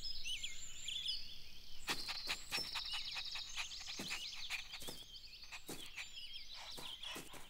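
Cartoon garden ambience of birds chirping, with a fast run of short sounds, about four or five a second, from about two seconds in.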